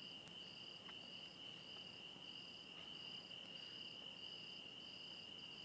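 Faint crickets chirping: a steady high trill with a higher chirp pulsing about three times every two seconds.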